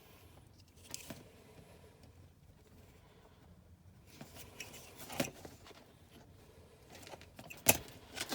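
Wiring harness and plastic switch connectors being handled, with light rustling and a few sharp plastic clicks, the loudest near the end.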